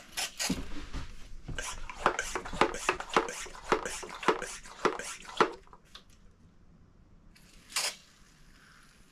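Hand spray bottle misting water over a freshly sown seed tray: a quick run of short spritzes, about three a second for some five seconds, then one more spritz near the end.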